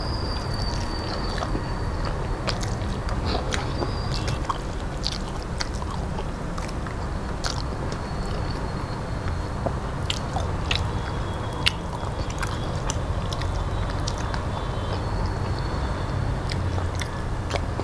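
Close-up eating sounds: chewing and mouth smacking of rice, mixed with fingers picking and scraping rice off a stainless steel plate, heard as many small scattered clicks over a steady low hum.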